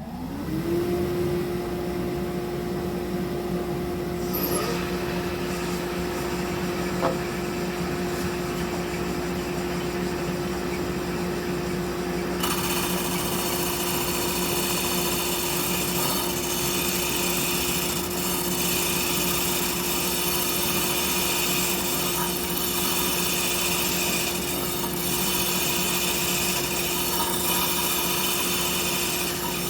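Shopsmith running as a disc sander, its motor holding a steady whine. About twelve seconds in, a wooden piece is pressed against the sanding disc and a steady rasping hiss of sanding joins in as the piece's bottom is flattened.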